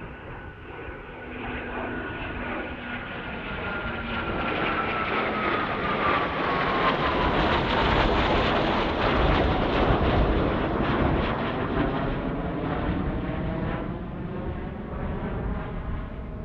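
A pair of Eurofighter Typhoon fighter jets passing low overhead: the jet noise builds to its loudest about halfway through, then fades, with a whine that falls steadily in pitch as they go by.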